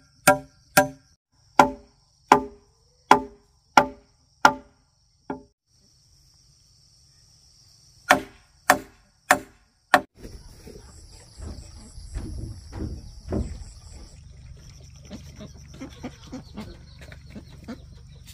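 Sharp chopping strikes on hollow bamboo, each with a short ringing tone, about one and a half a second: eight strokes, a pause of nearly three seconds, then four more. From about ten seconds in, steady insect buzzing with softer, irregular knocks and a couple of low thumps.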